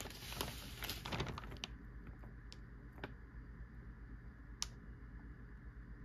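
Newspaper pages rustling and crinkling as they are handled, in a burst lasting about the first second and a half, then a few separate crackles.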